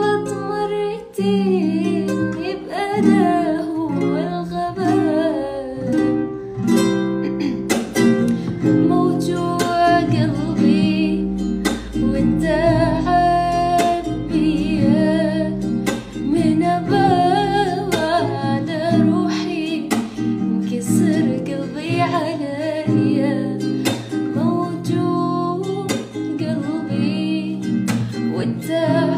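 Acoustic guitar with a capo accompanying a woman singing a slow Arabic song.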